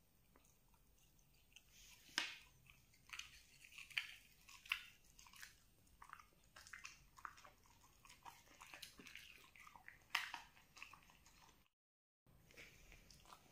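A dog chewing and crunching pieces of fried breaded dori fish: a run of crisp crunches and smacks, with the loudest bites about two seconds in and again about ten seconds in.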